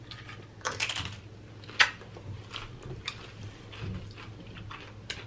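Crisp Flamin' Hot Doritos tortilla chips topped with cheese being bitten and chewed close to the microphone: a cluster of crunches about a second in, the sharpest crunch about two seconds in, then smaller irregular crunches.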